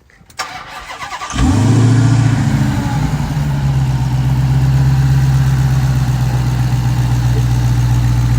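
Supercharged V8 of a Dodge Challenger Hellcat Redeye cranking and catching about a second and a half in, flaring briefly and then settling into a loud, steady idle.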